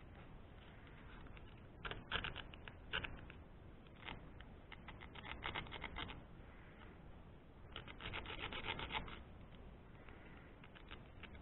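A metal part being abraded by hand in short runs of quick back-and-forth scraping strokes, three runs in all, each lasting a second or two.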